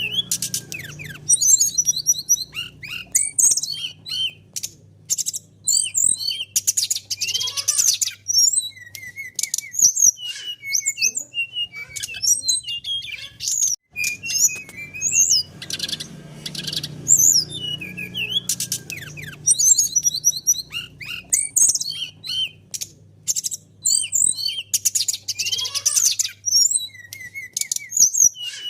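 A songbird singing a fast, busy song of high chirps, trills and short whistled notes, with dense rattling bursts now and then. A faint low hum runs underneath at times.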